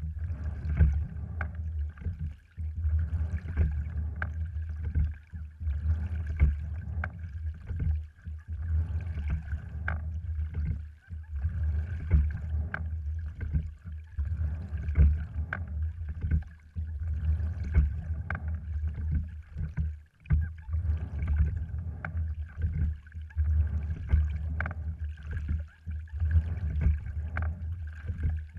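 A cedar-framed, cloth-covered sliding-seat rowing wherry under way: water rushing along the hull and oars working in their oarlocks, with scattered sharp clicks over a steady low rumble. The sound swells and eases about every two to three seconds with the rowing stroke.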